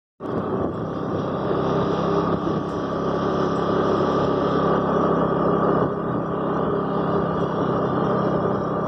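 Scooter engine running steadily while riding at a constant speed, with wind and tyre noise. The sound drops out for a moment right at the start.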